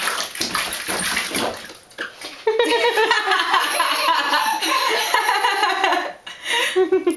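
Bathwater splashing for the first couple of seconds, then a toddler laughing with delight: a long high-pitched laugh, ending in quick rhythmic bursts of laughter.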